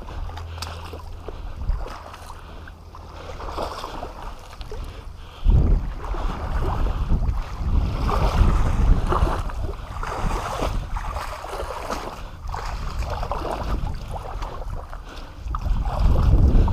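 Rough splashing and rustling, like someone wading and moving through water and brush. A heavy low rumble of wind buffeting the microphone sets in about five seconds in and grows louder near the end.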